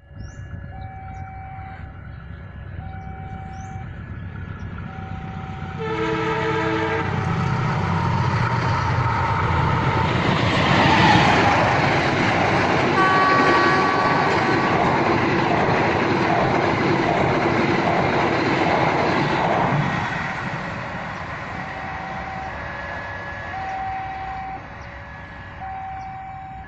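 A passenger train approaches and passes with a loud rumble and wheel noise, sounding its horn about six seconds in and again about thirteen seconds in. A repeating two-note warning tone, typical of a level-crossing signal, is heard at the start and again after the train has passed.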